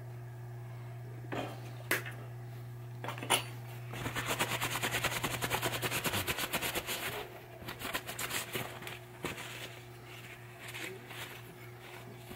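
A few handling clicks, then a pinball pop bumper part being rubbed clean by hand with fast back-and-forth scrubbing strokes. The scrubbing is loudest about four to seven seconds in, then goes on more faintly. A steady low hum runs underneath.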